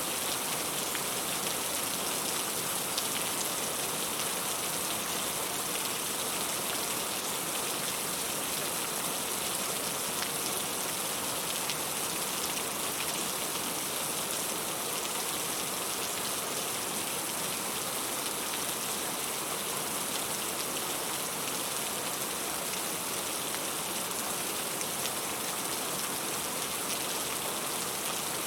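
Heavy rain falling steadily, a continuous hiss with faint scattered drop ticks.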